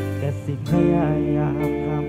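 Band music with guitar and a wavering melody line over sustained chords.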